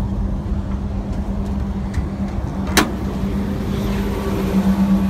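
A car's hood latch clicking open once, sharp and brief, about three seconds in, as the hood is lifted. Under it runs a steady low rumble with a steady hum.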